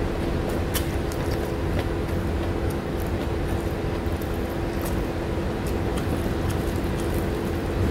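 Wet chewing and lip-smacking clicks from someone eating rice and fish by hand, over a loud, steady low rumble with a constant hum.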